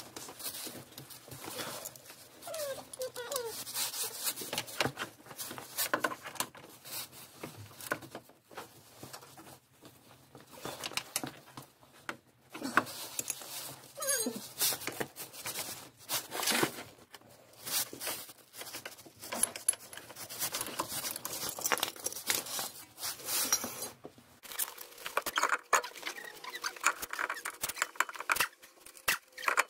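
Irregular metal clicks and clinks from a socket wrench working the control-arm bushing bracket bolts, over a faint low hum that stops about 24 seconds in. Near the end the clicking comes quicker as the wheel bolts are turned by hand.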